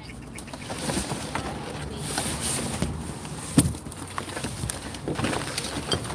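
Black plastic trash bags rustling and crinkling as they are grabbed and shifted, with scattered small clicks and one sharp knock a little past halfway.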